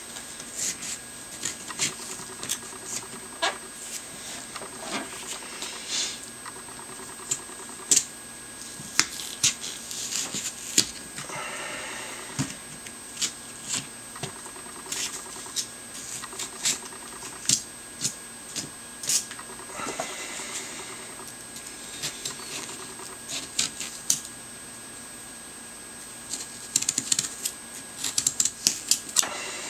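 Hand carving tool scraping and cutting into pumpkin flesh: irregular sharp clicks and scrapes, with a few longer scraping strokes and a quick run of clicks near the end.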